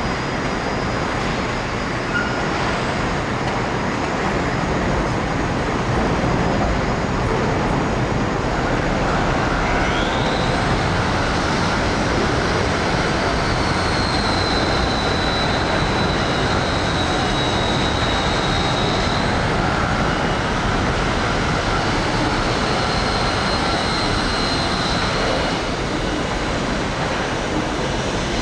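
Docklands Light Railway train running past, its electric traction motors giving a high whine that rises about ten seconds in and then holds, over a steady rumble of wheels and city noise.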